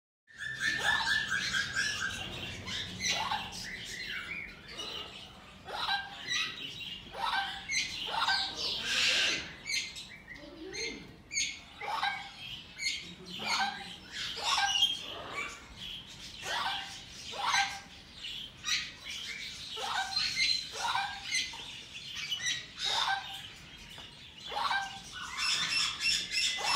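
Green-cheeked conure chirps and chatter: short, sharp calls about once a second, with quicker, higher chatter between them.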